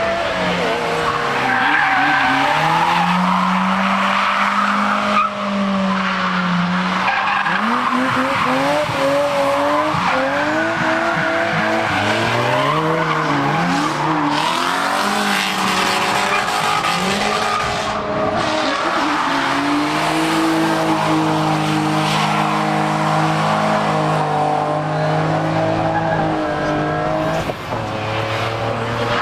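Competition car engines running hard, their pitch climbing and dropping again and again as they rev up, change gear and lift off. Loud and continuous.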